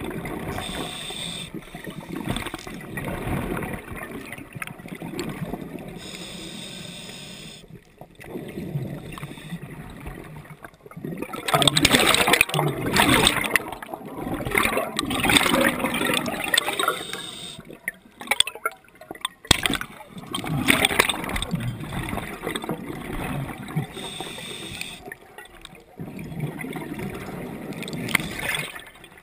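Underwater: a scuba diver breathing through a regulator, with surges of exhaled bubbles gurgling past the camera, the loudest stretch about halfway through.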